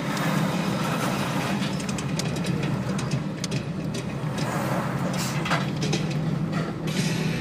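Chevrolet Corsa Sedan cruising on the highway, heard from inside the cabin: a steady engine drone and road noise, with oncoming trucks passing close by and scattered light clicks.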